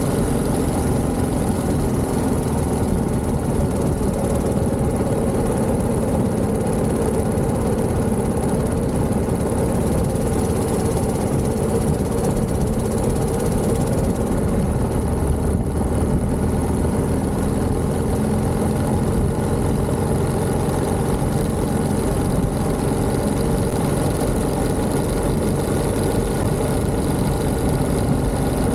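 Vintage 1929 Méray motorcycle's JAP 600 engine running steadily, with no change in pace.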